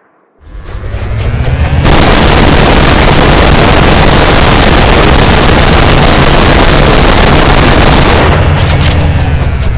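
Minigun burst. The barrels spin up with a rising whine, then the gun fires as one continuous ripping stream of shots for about six seconds, and the barrels wind down with a falling whine near the end.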